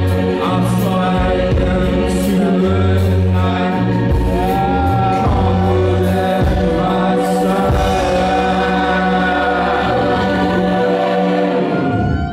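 Rock band playing live and loud: held synthesizer chords over bass guitar and drums, with cymbal crashes and a singer's voice gliding over the top. Near the end the song stops and the crowd starts cheering and whistling.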